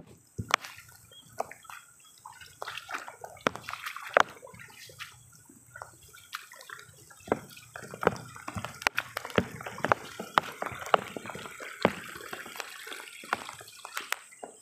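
Footsteps sloshing and squelching through shallow water and mud in a waterlogged rice paddy, with many irregular sharp splats.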